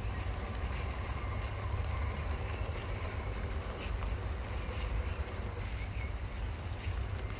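Wind buffeting the microphone as a low rumble, over the faint wavering whine of a Vanquish VS4-10 Pro RC crawler's electric motor and gears as it creeps over wooden obstacles, with a few light clicks.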